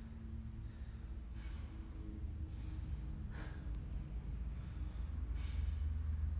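A man breathing hard from exertion while holding a wall sit, with three loud exhales about one and a half, three and a half, and five and a half seconds in, over a steady low hum.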